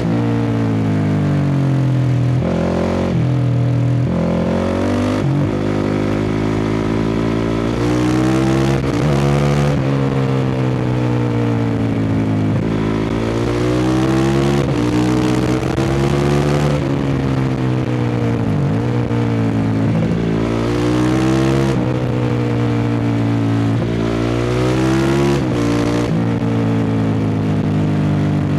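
2016 Honda CRF450R single-cylinder four-stroke engine through a full Akrapovič dual exhaust, ridden hard: it revs up through the gears and drops in pitch at each shift or roll-off, over and over.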